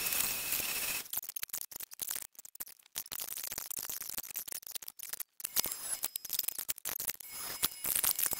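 Electric random orbital sander running on a hardwood board, a steady hiss with a thin whine, cut off about a second in. The rest is sped-up, choppily edited workshop noise: short bursts of machine sound and clicks broken by brief gaps.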